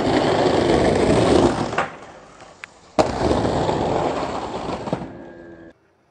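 Skateboard wheels rolling hard over cobblestones, a loud rough clatter that fades just before 2 s in. A single sharp clack of the board comes about 3 s in, then the rolling clatter starts again and cuts off suddenly near the end.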